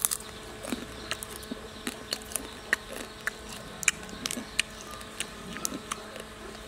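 Crisp, irregular crunching clicks, about three a second, as the hard shell of a dung beetle is chewed close to the mouth, over a faint steady hum.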